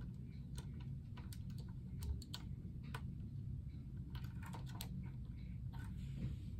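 Irregular light plastic clicks and taps as a ring light is screwed by hand onto a tripod's mounting head, over a low steady hum.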